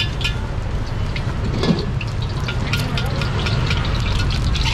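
Egg fried rice being stir-fried in a wok over a high-heat gas burner: the burner's steady roar under the scraping and clanking of a metal spatula against the wok.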